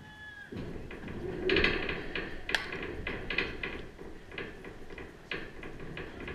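Softball bat striking the ball with a short ringing ping, followed by a few seconds of clattering knocks and short shouts as the play runs, loudest about a second and a half in.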